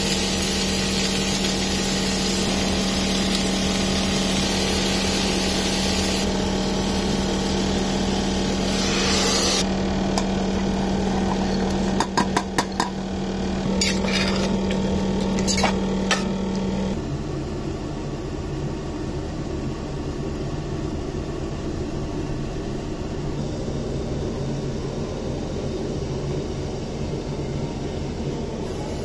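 Kitchen cooking sounds: a steady hum under a rushing hiss, then several sharp clinks of metal on a steel pot about twelve to sixteen seconds in, after which a quieter steady hum remains.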